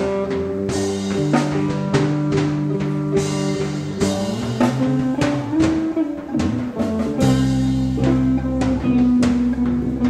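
Live worship band playing: electric guitar over a drum kit keeping a steady beat, with held low notes. A note bends up and down a little past the middle.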